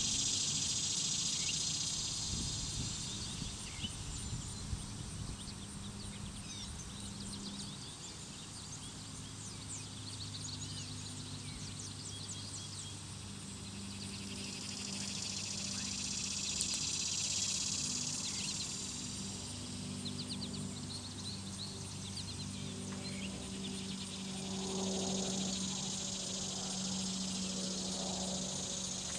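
Summer insect chorus at a pond: a high buzzing that swells and fades in long waves, three times, with scattered faint chirps and a low steady hum underneath.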